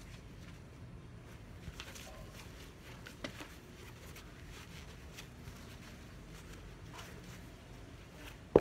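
Handling of a Fox Launch Pro fabric knee pad: faint rustling and a couple of light clicks, then a sharp knock near the end.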